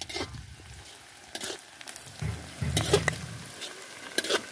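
Metal spatula stirring and scraping onions, garlic, green chillies and whole spices as they sizzle in hot oil in a large metal karahi. Several sharp scrapes of the spatula against the pan sound over the steady sizzle.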